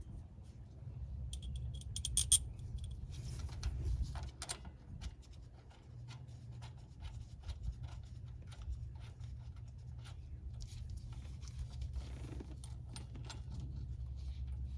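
Metal tools or parts clinking and scraping in scattered small clicks, with a brief metallic jingle about two seconds in, over a steady low hum.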